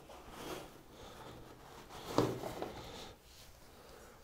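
Rubber tyre scraping and rustling against the rim as gloved hands work the bead of a Chaoyang Fat Momma fat-bike tyre onto the rim, with one sharp thump about two seconds in.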